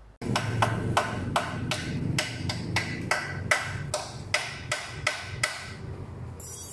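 Hammer blows on metal in a steady rhythm, about three strikes a second, each with a brief ring, stopping about five and a half seconds in, over a steady low hum.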